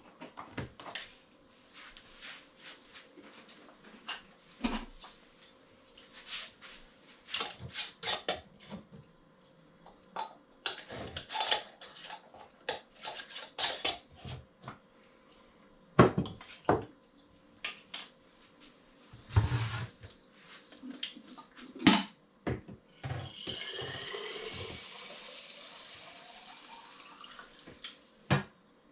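Glass canning jars and their lids clinking and knocking as they are handled on a counter. Near the end, water is poured from a pitcher through a funnel into a glass jar for about five seconds, rising in pitch as the jar fills.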